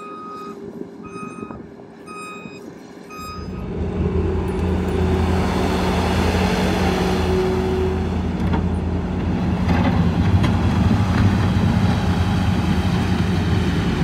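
Case SV340 skid steer: its backup alarm beeps four times, evenly spaced, then its diesel engine comes in loud and close and runs steadily as the machine drives over the fill.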